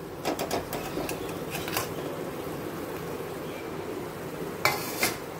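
Cooked brown rice tipped from a steel plate into a steel kadai of vegetable masala, with a few clinks and scrapes of steel on steel in the first couple of seconds, over a steady hum. A louder scrape comes near the end as the spatula works the rice into the pan.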